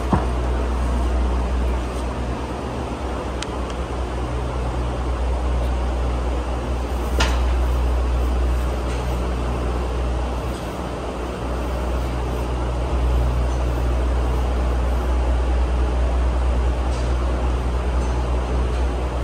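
Steady low rumble of a running machine, with a few sharp clicks or knocks over it, the loudest about seven seconds in.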